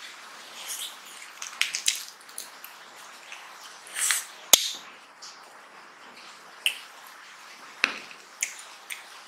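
Close-miked wet chewing and lip smacks from a mouthful of rice and mutton curry, mixed with fingers squishing rice and curry together on a steel plate. A sharp click stands out about halfway through.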